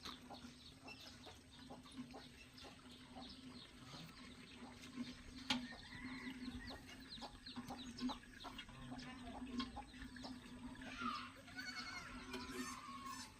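A goat bleating about eleven seconds in, against many small bird chirps and a steady low hum.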